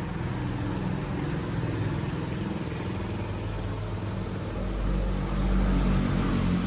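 A motor engine running with a steady low rumble, growing louder about four and a half seconds in.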